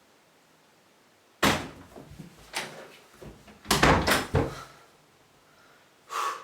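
A door banged and knocked about: a cluster of sharp hits and rattles starting about a second and a half in, then one more knock near the end.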